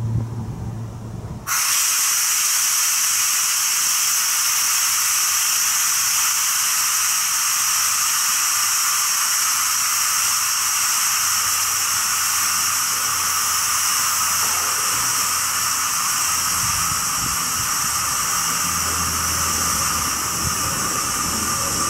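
Compressed air hissing steadily from a freight train's air brakes, starting suddenly about a second and a half in: the brakes being released before the train pulls away. A low hum comes in near the end.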